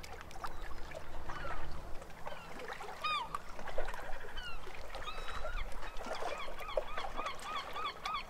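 Birds calling: many short chirps, and from about six seconds in a steady series of repeated notes, about three a second, over a low rumble.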